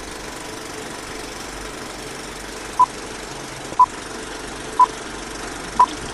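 Old-film countdown-leader sound effect: a steady film-projector rattle and hiss, with a short high beep once a second, four beeps starting about three seconds in, one for each number counted down.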